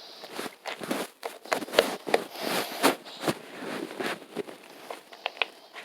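Slime being squeezed and kneaded by hand, giving an irregular run of wet clicks and pops.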